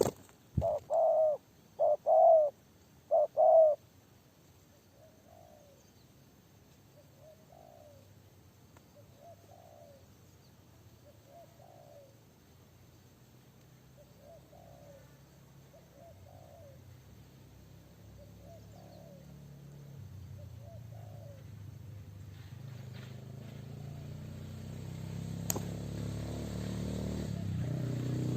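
Spotted dove cooing: three loud coos in the first few seconds, then quieter coos repeating about once a second. In the second half a motor engine hum rises and grows louder toward the end, with a single sharp click shortly before it ends.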